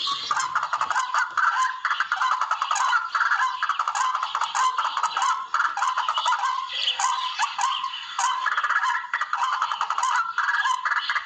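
Barred rail (tikling) calls played back as a hunting lure: a continuous run of rapid, harsh pulsed notes repeating in quick phrases.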